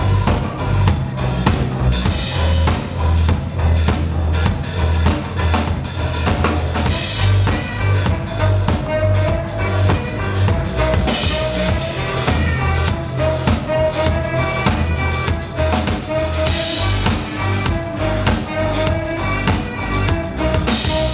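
Live band playing a steady drum kit beat over a heavy, pulsing bass line, with saxophone. From about eight seconds in, a short high melodic phrase repeats over the groove.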